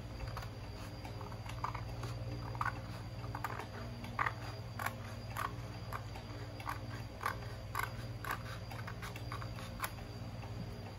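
Small scissors cutting through a folded sheet of craft paper, a run of short crisp snips about every half second.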